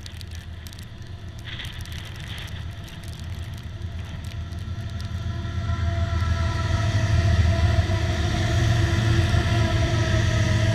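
Union Pacific diesel locomotives pulling a container train, approaching and then passing close by. A deep engine rumble swells as the lead units draw level about six seconds in, with a steady whine over it.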